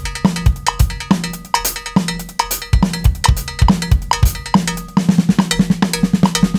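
Drum kit groove with paradiddle sticking spread across snare, toms, cymbals and bass drum, over a steady metronome click about twice a second. In the last second and a half it breaks into a fast fill of rapid strokes on the drums.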